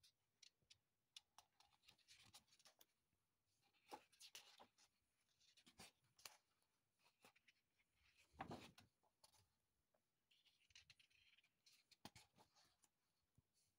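Faint rustling and handling of sketchbook paper as the pages are turned, with scattered soft clicks and taps. The fullest rustle, with a soft thump, comes about eight and a half seconds in.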